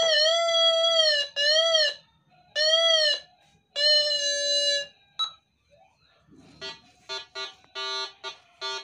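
Minelab Go-Find 60 metal detector giving its target tone: three long held tones, each bending slightly in pitch at the ends, as the search coil passes over a gold ring. Near the end the tones change to a quick run of short beeps in two alternating pitches.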